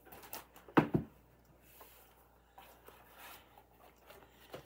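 Two sharp knocks close together about a second in as objects are set down, followed by fainter rustling and handling noises.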